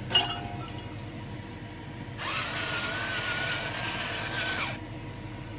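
Battery-powered electric pepper grinder grinding black pepper: a small motor's steady whine over a grinding rasp, starting about two seconds in and lasting about two and a half seconds. A short click comes just before, near the start.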